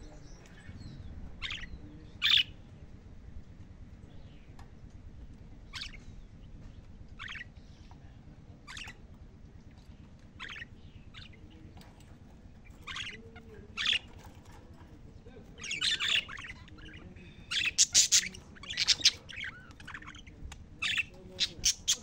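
Caged budgerigars giving short, sharp chirps and squawks: single calls a second or more apart at first, then coming in quick clusters in the second half and again near the end.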